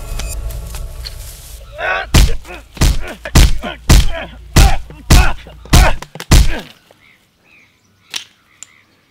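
Fight-scene punch and kick sounds: about eight heavy thuds roughly half a second apart, with short grunts between them, after a fading low rumble. The blows stop suddenly about seven seconds in.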